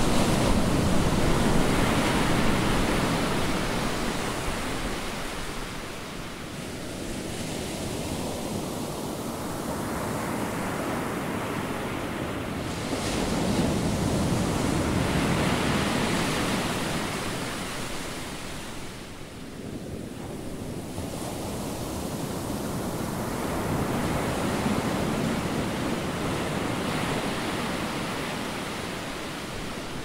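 Ocean surf: waves breaking and washing up the beach, a steady rush that swells and fades three times.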